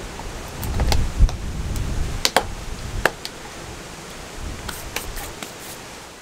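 Plastic lid being pressed down onto a plastic tub of water-putty filler: a scatter of sharp clicks and snaps as it is seated, with a cluster of quicker clicks near the end. A low rumble sits under the first couple of seconds.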